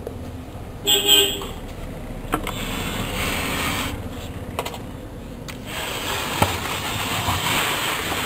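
Street traffic: a short horn toot about a second in, then two vehicles passing, the first briefly and the second for several seconds.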